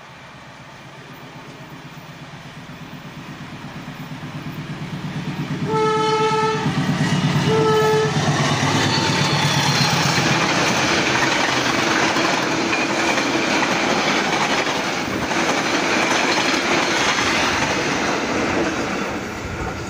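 CC 203 diesel-electric locomotive hauling a passenger train at speed: its engine grows steadily louder as it approaches, it sounds two short horn blasts about six seconds in, then the coaches rush past loudly, easing off near the end.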